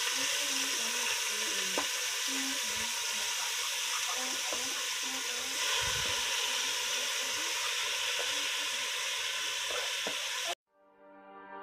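Pork ribs frying in oil in a pan, a steady sizzle that cuts off suddenly about ten seconds in. Music fades in near the end.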